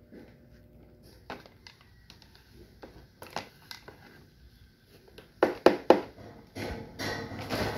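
A small plastic trowel handling potting soil at a plastic plant pot: scattered light clicks, then three sharp knocks in quick succession about five and a half seconds in, followed by a steady rustle near the end.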